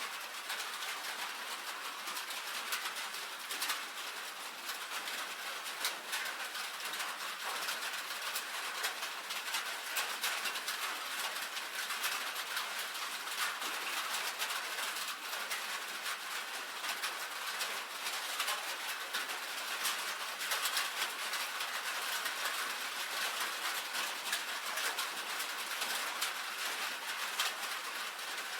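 Rain falling on a tin roof: a dense, steady patter of fine drop ticks on the metal with no pauses.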